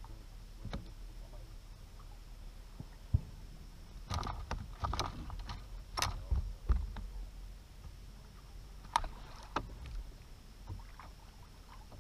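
Water lapping against a fishing boat's hull with a steady low rumble, broken by knocks and clatter of gear and feet on the boat's deck: one sharp knock about three seconds in, a cluster of knocks in the middle, and another sharp click near the end.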